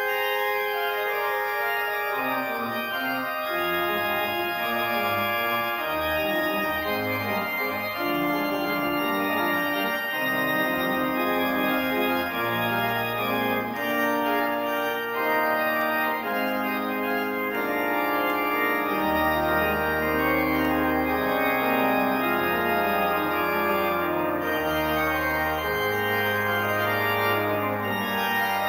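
Kegg organ played from the console: sustained chords moving slowly from one to the next, with low bass notes joining a few seconds in and reaching deeper later on.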